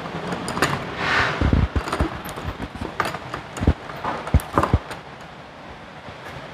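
A car wheel being handled and fitted onto its hub: scattered metal clinks and several dull, heavy knocks, clustered between about one and five seconds in.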